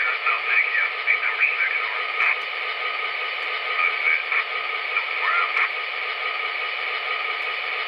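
Sound system of an MTH HO-scale GP35 model locomotive playing its PFA freight radio chatter through the small onboard speaker: thin, tinny two-way-radio voices over a steady hum, the voices thinning out about six seconds in.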